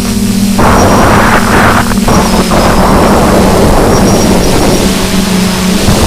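DJI F450 Flame Wheel quadcopter's motors and propellers humming steadily, picked up by the camera on board, with gusts of wind buffeting the microphone.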